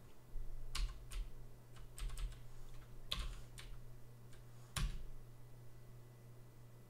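Computer keyboard keys clicking as a command line is edited and entered: a scattered run of about ten separate keystrokes, the loudest about three and five seconds in, over a low steady hum.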